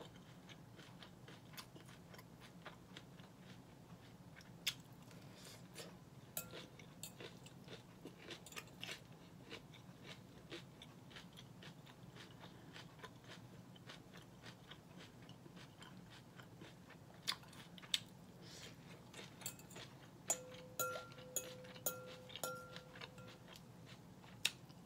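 Close-up chewing and crunching of salad, with many sharp clicks of a fork against a glass bowl. Near the end, a short steady tone rings for about three seconds under the clicks.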